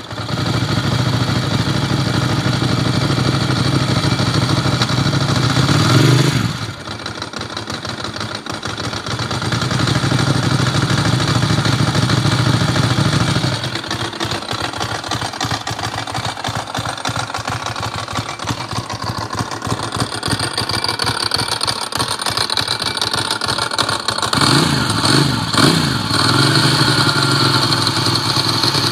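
Ducati Monster 900's air-cooled L-twin engine running through its exhaust, revved up about six seconds in, then idling with a quick pulsing beat, and blipped several times in quick succession near the end.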